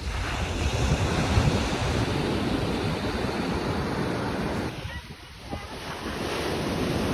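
Wind buffeting the microphone over the wash of ocean surf, easing briefly about five seconds in.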